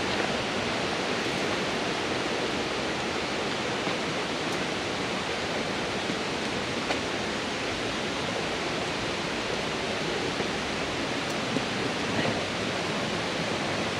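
Steady rush of fast-flowing creek water tumbling over rocks, the stream running high after rain.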